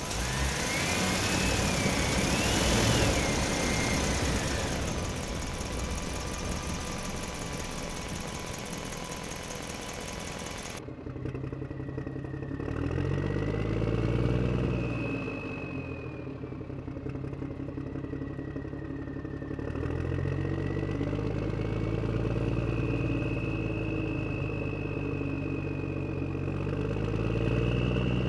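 Motors of radio-controlled construction machines running, their whine and engine-like hum rising and falling in pitch as the machines work. The sound changes abruptly about eleven seconds in, losing its hiss.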